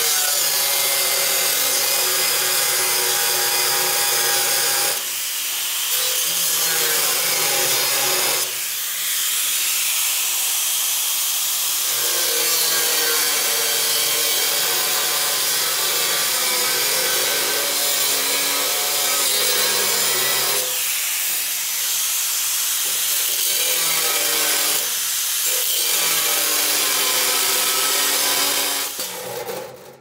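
Angle grinder with a cut-off wheel cutting through the hardened steel of an old sawmill blade: a steady, high-pitched grinding screech over the motor's whine, easing off briefly a few times as the wheel is lifted or repositioned, then dying away near the end.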